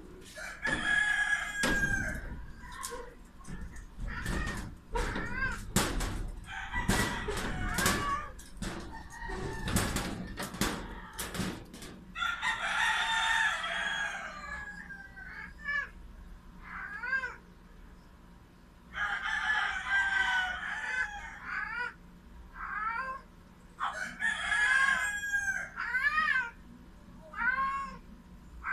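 A rooster crowing four times, each crow a long call of a second or two. Between the first two crows comes a dense run of sharp knocks and rattles, and in the second half short rising-and-falling whining calls repeat about once a second.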